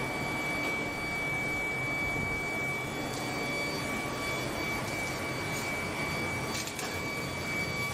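Steady machine drone with a constant high-pitched whine. Near the end come a few brief scraping sounds as sand is dumped onto a casting flask.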